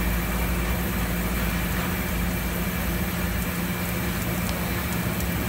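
Steady machine hum of a running wire EDM machine, a low drone with an even hiss over it and no distinct strikes or changes.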